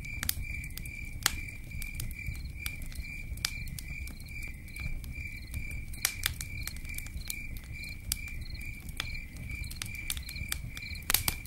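Campfire crackling with sharp, irregular pops over a low steady rumble, while a cricket chirps steadily about three times a second.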